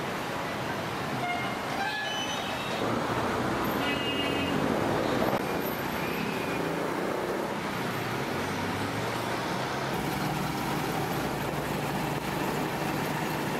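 City street traffic noise with vehicle horns tooting briefly, about two and four seconds in. From about ten seconds in, a steady low engine hum joins the traffic noise.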